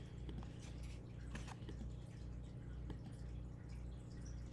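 Quiet room tone: a low, steady hum with a few faint, scattered clicks.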